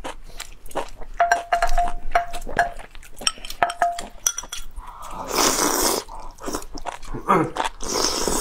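Close-miked eating: chewing and lip smacks on sliced beef and enoki mushrooms in chili broth, with chopsticks clinking against bowls several times in the first half. Two long wet slurps, one about five seconds in and one near the end.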